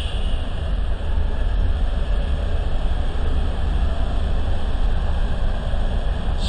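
Amtrak passenger train running on the rails: a loud, steady low rumble of the train rolling, with no single knocks or horn.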